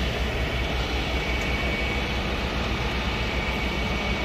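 Diesel engine of a box truck running steadily with a deep, evenly pulsing rumble and a thin steady whine.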